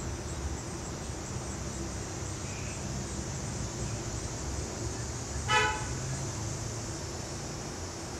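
A single short car horn toot about five and a half seconds in, the loudest sound, over a steady low background rumble.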